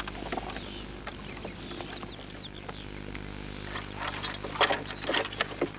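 Rope creaking and hay rustling as a hay load is tied down over its wooden hay pole, in a run of short knocks and rustles from about four seconds in, under a steady low hum and faint birdsong.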